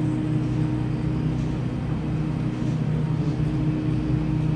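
Steady low mechanical hum of a supermarket's refrigerated dairy cases, several fixed hum tones over a constant rumble.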